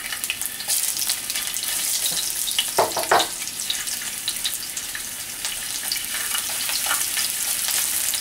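Fresh ginger slices sizzling in hot vegetable oil in a skillet, a steady crackling sizzle, with a couple of brief clinks about three seconds in.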